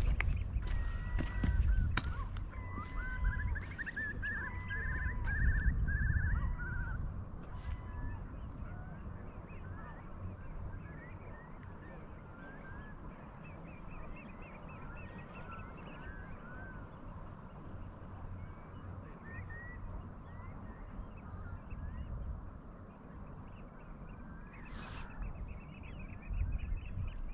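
A flock of birds calling: many short, overlapping calls, busiest with a rapid run in the first seven seconds and thinning out after. Under them is a low rumble that is loudest early on.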